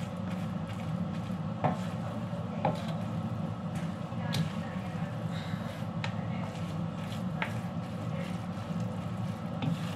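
Wooden spatula and chopsticks tossing fried noodles in a metal wok, scraping through the noodles with about six sharp taps against the wok, over a steady low rumble.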